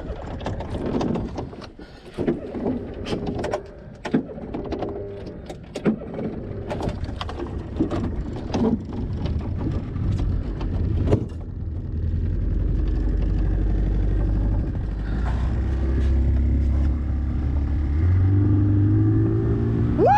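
Knocks and clatter of gear being handled in a fishing boat for about the first ten seconds, then the boat's outboard motor runs steadily and picks up speed, rising in pitch near the end.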